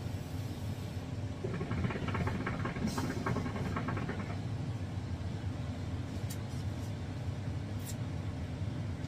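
Steady low rumble of a road vehicle in motion, heard from inside, with a short stretch of faint rattling about two seconds in.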